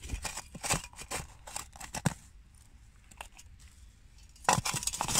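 Small hand trowel scraping and digging into earth and fine rootlets: a series of short scrapes and crunches, fewer in the middle, then a dense burst of scraping near the end.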